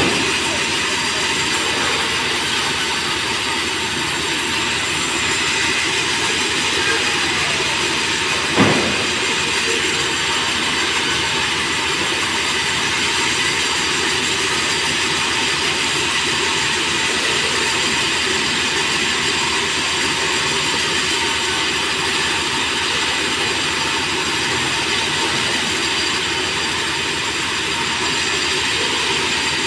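Large industrial band saw in a sawmill running steadily as merbau timber is fed through it. A single sharp knock comes about eight and a half seconds in.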